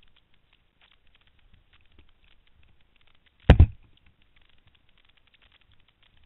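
A single heavy thud about halfway through, two quick hits close together, over faint scattered crackling.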